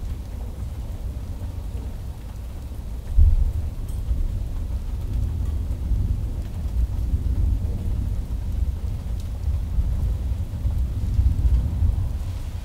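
Thunderstorm: a sudden low boom of thunder about three seconds in, then rolling rumble that swells again near the end, over steady rain.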